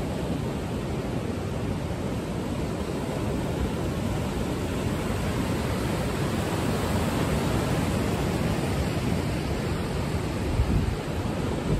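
Ocean surf breaking below the pier, a steady rush of waves. Near the end come a couple of brief low bumps.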